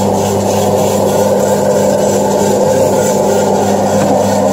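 Şahveli GDM-06 electric food slicing machine running with a steady, even motor hum while it slices chicken breast.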